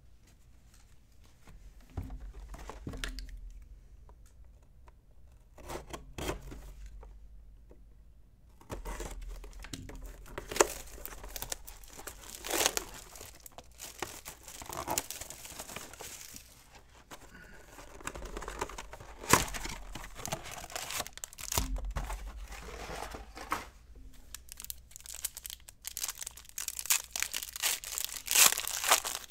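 Trading card packs being torn open and their wrappers crinkled: irregular crackling and rustling, sparse for the first several seconds and busier after that.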